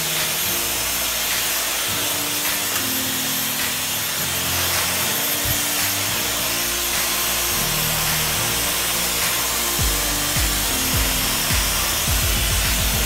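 Hand-held hair dryer blowing steadily while a vent brush is drawn through short hair, over background music; a few low bumps from about ten seconds in.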